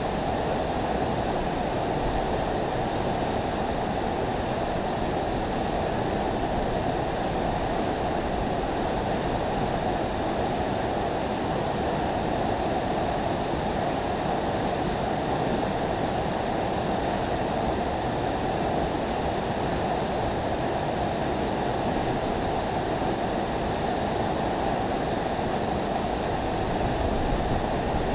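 Steady, unbroken rush of river water pouring through a spillway.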